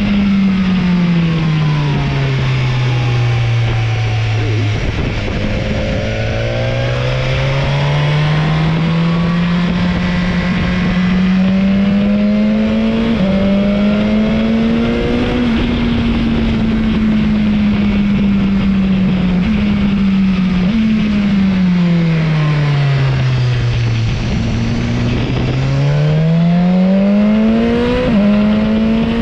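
Motorcycle engine under way. Its revs slide slowly up and down: falling over the first few seconds, climbing for a long stretch, and falling and climbing again near the end. Several abrupt steps in pitch mark quick gear changes.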